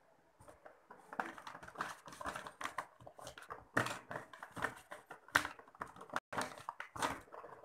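Rummaging through a paper gift bag full of cosmetic products: paper crinkling and irregular clicks and knocks of plastic tubes and bottles against each other.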